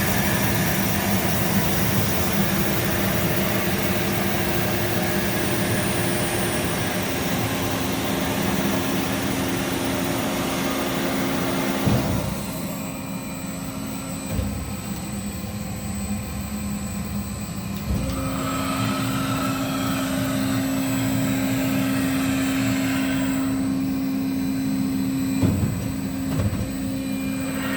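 Kasto Twin A3 horizontal bandsaw running with a steady machine hum. About twelve seconds in there is a knock and the noise drops. A new steady hum starts about eighteen seconds in, with another knock or two near the end.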